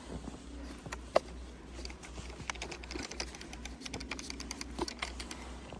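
Footsteps crunching in snow: a dense, irregular crackle of small clicks, with one sharper snap about a second in.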